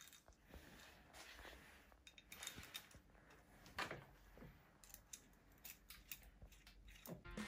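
Faint, scattered clicks of small hardened steel screws being handled and set by hand into the holes of a steel plate, one click louder than the rest near the middle.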